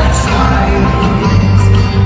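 Rock band playing live in an arena, with loud bass and sustained guitar notes, heard from far back among the audience.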